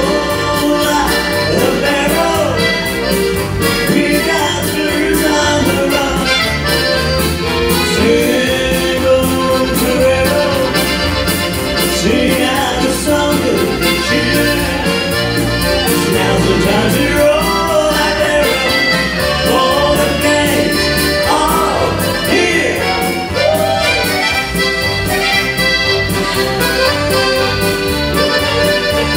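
Live piano accordion playing a dance tune over a steady bass accompaniment.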